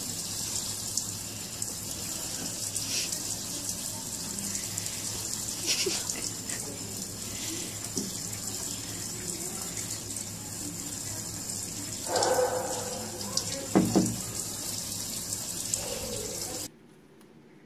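Kitchen faucet running steadily, its stream splashing into a stainless steel sink and onto a cat standing under it. About twelve seconds in, a louder brief sound rises over the water, followed by a couple of sharp knocks. The water sound cuts off abruptly near the end.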